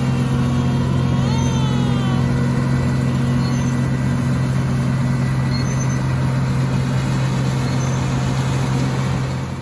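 Vehicle engine running at a steady speed, a constant low drone with an even hum. About a second in there is a brief high warbling tone.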